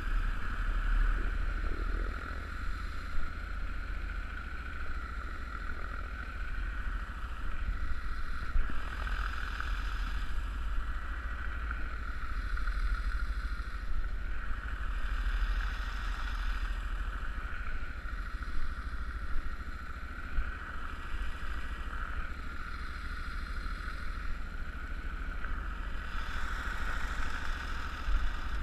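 31 hp Mud Buddy mud motor running steadily at cruising speed, pushing an aluminium duck boat along the river.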